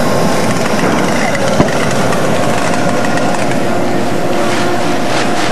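Steady machinery drone from the CNC router setup, carrying a steady hum tone, with one sharp click about a second and a half in.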